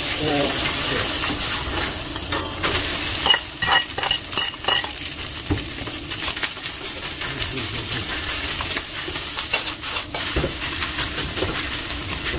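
Beaten egg sizzling in hot oil in a wok, with a metal ladle stirring, scraping and clinking against the pan as rice is stir-fried in with it. The sizzle is loudest in the first few seconds, and a run of ringing ladle clinks comes between about three and five seconds in.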